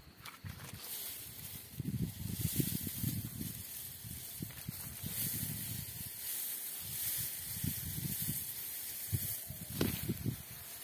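Rustling of rice plant leaves brushed by hand and against the phone, a steady hiss with irregular low handling thuds.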